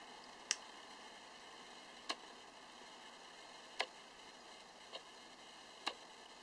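Faint steady hiss with five sharp, isolated clicks, spaced one to two seconds apart.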